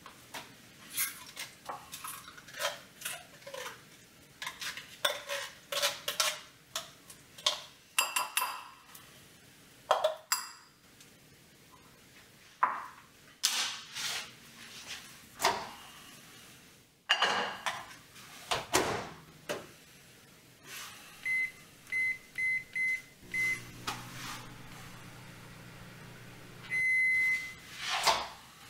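Kitchen sounds of a steel saucepan and tongs: repeated clinks, scrapes and clatters of metal utensils against the pot and bowl. Then a microwave oven's keypad beeps several times in quick succession, the oven hums for about three seconds, gives a longer beep, and its door clunks open near the end.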